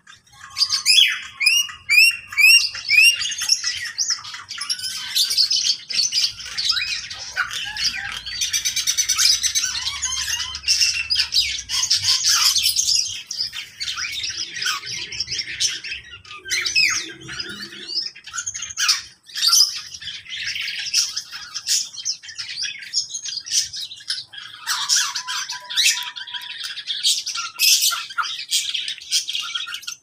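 Mixed chorus of many caged songbirds and parrots in an aviary: overlapping chirps, whistles and harsh squawks, with a run of short, repeated rising whistled notes a second or two in.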